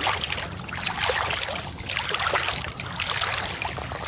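Footsteps wading through shallow lake water, with irregular splashing and sloshing.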